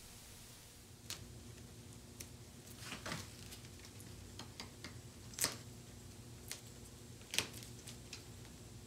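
Faint scattered clicks, taps and rustles of hands pressing and handling the covering material on a dashboard speaker-grille panel, over a low steady hum.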